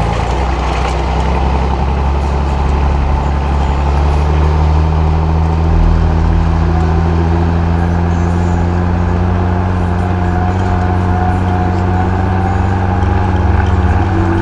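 Fendt Farmer 311 LSA Turbomatik tractor's diesel engine running steadily under load while pulling a heavy cultivator through a field. A faint whine rises slowly in pitch over the second half.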